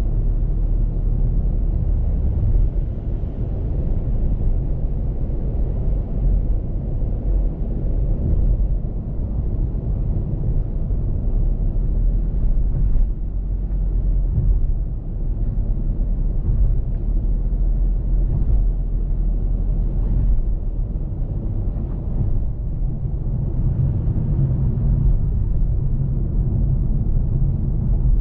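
Steady low rumble of road, tyre and engine noise heard inside the cabin of a Toyota Yaris Cross cruising at expressway speed.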